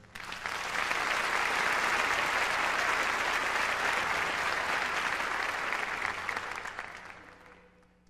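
Theatre audience applauding, swelling within the first second and dying away near the end.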